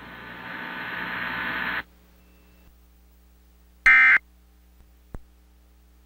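Hiss of the relayed broadcast audio swells for a couple of seconds and cuts off. About four seconds in comes one short, loud, buzzy burst of Emergency Alert System data tones, the end-of-message code that closes the tornado warning. A faint click follows about a second later over a low hum.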